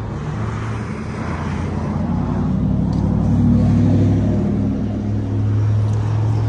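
Vehicle engine running as a steady low hum. It grows louder through the middle and steps up in pitch near the end.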